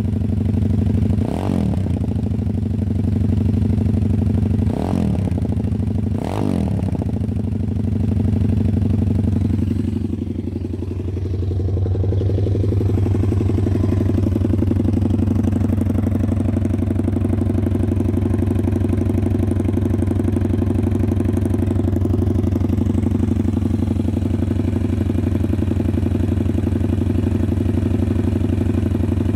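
WPB Beast 190 pit bike's 190cc single-cylinder four-stroke engine running on the stand, brand new and not yet run in. It is blipped three times in quick succession in the first seven seconds, rises and falls once more a few seconds later, then settles into a steady idle.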